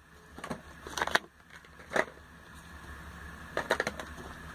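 Plastic cosmetic bottles and tubes being handled and set down on a tabletop: a few light knocks and clacks about a second in, at two seconds and in a quick cluster near the end, over a steady low hum.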